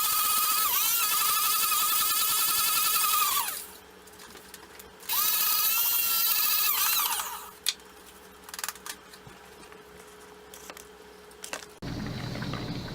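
Electric blade coffee grinder running with a high-pitched whine, in two bursts with a pause of about a second and a half between them; the second burst sinks in pitch as the motor winds down. A few light clicks follow, and a steady low hum starts near the end.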